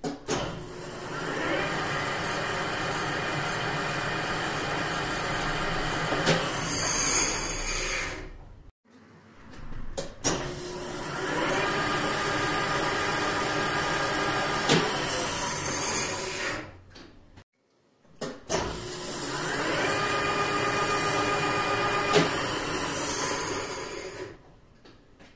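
Engine lathe running with a square bar held in its three-jaw chuck: the spindle starts with a click, runs steadily with a whine, then runs down, three times over.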